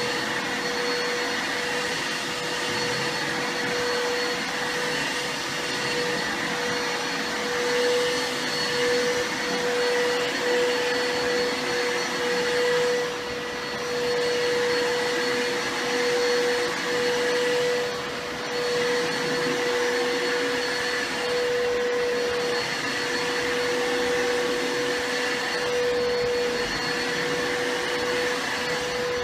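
Vacuum cleaner motor running steadily with a constant whine, briefly dipping in level twice about halfway through.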